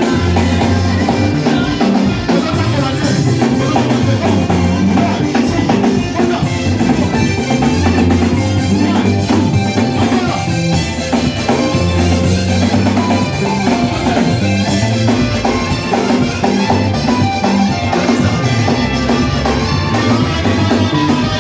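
Upbeat church band music: a drum kit keeps a steady beat under a prominent low bass line, with other instruments playing on top.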